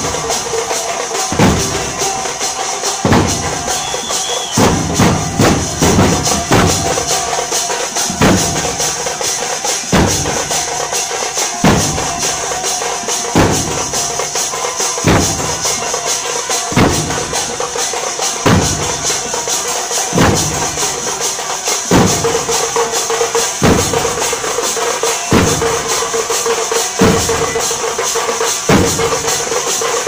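A troupe of large barrel drums beaten with sticks in fast, dense rhythm, a heavy accented stroke landing about every second and a half, over a steady bright jingling layer.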